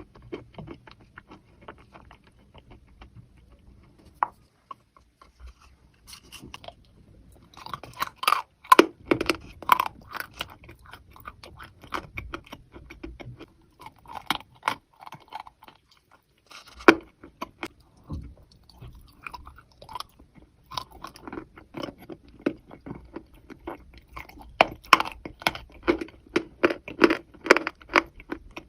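Close-up chewing and crunching of wet chalk coated in thin clay paste, in uneven runs of many small crackling crunches with short pauses between mouthfuls.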